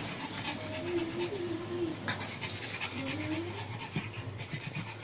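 Pug puppy panting, with two drawn-out, wavering whines, the first about a second in and a shorter one about three seconds in.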